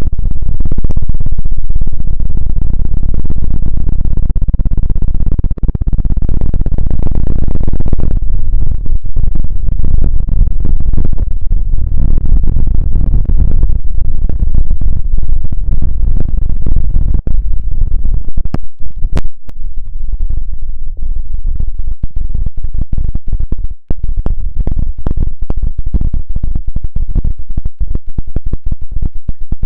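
ASMR trigger sounds: loud, close-up scratching and rubbing with a heavy low rumble and dense crackling, broken by a few sharp clicks after about 18 seconds.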